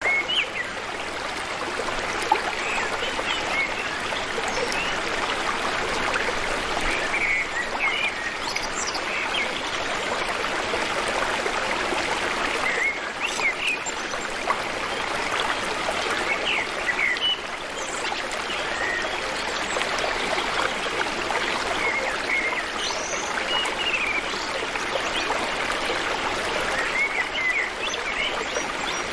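A stream running steadily, with birds chirping over it every few seconds.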